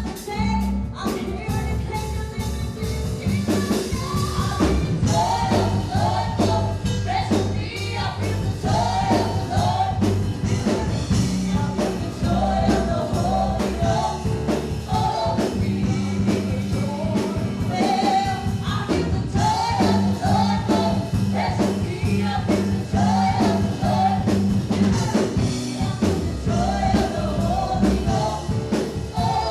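Live gospel worship music: singers over a band with held bass notes and a steady drum beat.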